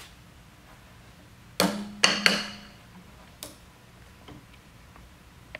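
Three sharp metal clanks with a short ring, then a few faint clicks: a large steel snap ring and snap ring pliers knocking against the steel pump cylinder of a Crown PTH50 hydraulic unit as the ring is worked into its groove to retain the cylinder.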